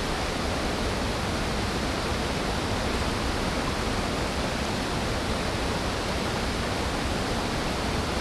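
Steady rush of creek water running fast over a shallow, rocky riffle.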